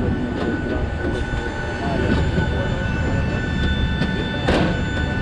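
Steady drone of aircraft ground machinery on the airport apron: a low rumble with steady high whining tones, and voices faintly under it. About four and a half seconds in, a single sharp clank from feet on the metal airstair.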